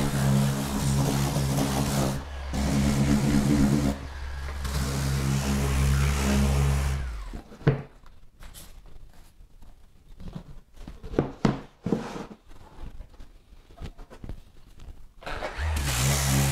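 Electric random-orbital sander with a dust-extraction hose running steadily while sanding the resin-coated sink mould insert, briefly dipping twice. It stops about seven seconds in, leaving a quiet stretch with scattered light knocks of the sander and insert being handled, then starts up again near the end.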